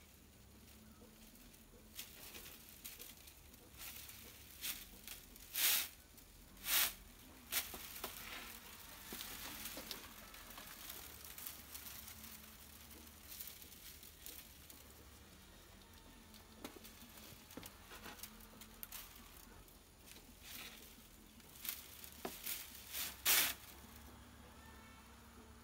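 Bundle of dry coconut-leaf midribs (ekel) rustling and clicking as it is handled and bound with string, with a few louder brief rasps, twice about six seconds in and again near the end.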